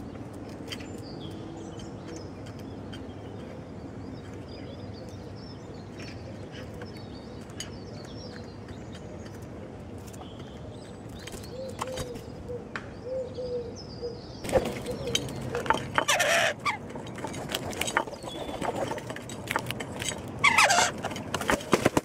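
Wood pigeons and smaller birds at a windowsill feeding spot, with faint calls, pecking clicks and wing flaps over a steady background hum. About two-thirds of the way in the activity grows much louder: bursts of wing flapping and harsh calls.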